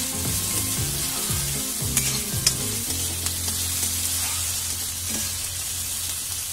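Chopped onions, green chillies and curry leaves sizzling in hot oil in a kadhai while a metal spatula stirs and scrapes them around the pan. There are a couple of sharp spatula clicks about two seconds in.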